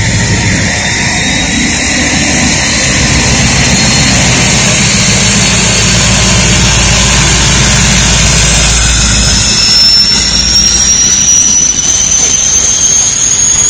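A train running loud, with a heavy low engine rumble that drops away about nine or ten seconds in. As it drops, a thin high whine or squeal appears and rises slowly in pitch.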